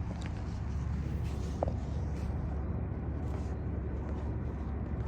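Steady low engine rumble, with a short faint squeak about one and a half seconds in.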